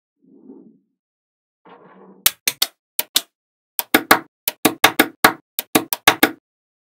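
A fast series of sharp taps or knocks on small hard pieces, about twenty in four seconds: three, then two, then a quick run near the end. They follow a little soft handling noise.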